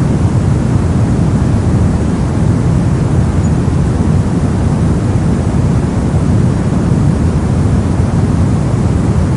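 Brown noise: a steady, deep rumbling hiss with its weight in the low end, unchanging throughout.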